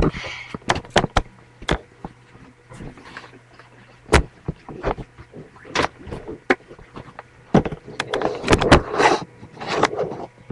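Irregular knocks, clicks and rustling from a webcam being handled and moved around, heaviest near the end, over a steady low electrical hum.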